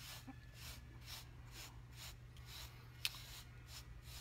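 Fingers rubbing and scratching through a full beard, a soft rasping stroke about twice a second, with one sharp tick about three seconds in.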